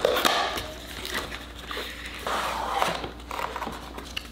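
Packaging being handled as a small cardboard retail box is opened and emptied: cardboard flaps scraping, with paper and plastic rustling in several uneven bursts and a few sharp clicks.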